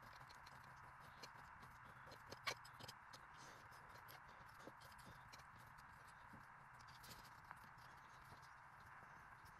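Near silence, with faint scattered clicks and one sharper knock about two and a half seconds in, as a metal EGR block-off plate is handled and fitted over its studs.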